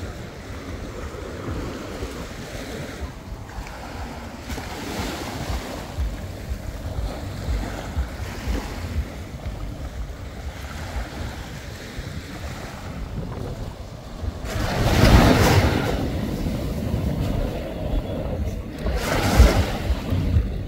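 Small waves washing up on a sandy beach, with wind on the microphone. The sound swells louder twice, a longer surge about three-quarters of the way through and a shorter one near the end.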